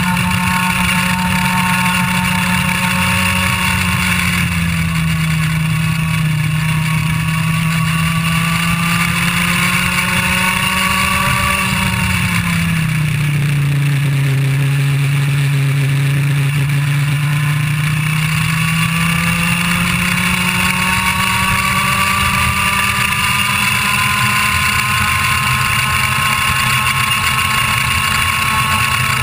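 IAME Leopard 125cc two-stroke kart engine running at high revs, heard up close. Its pitch drops about twelve seconds in as the kart slows for a corner, stays low for several seconds, then climbs steadily as it accelerates down the straight.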